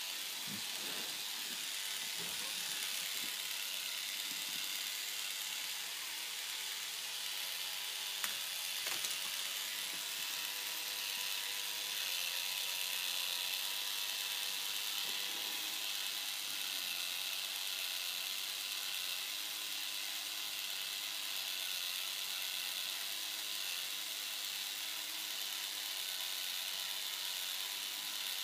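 K'nex ball machine running: its plastic gears and lift mechanism whir and ratchet steadily, with a few sharper clicks about eight and nine seconds in.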